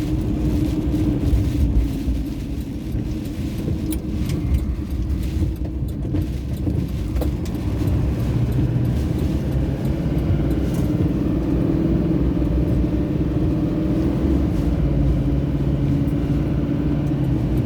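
Car driving along the road: steady low rumble of engine and tyre noise.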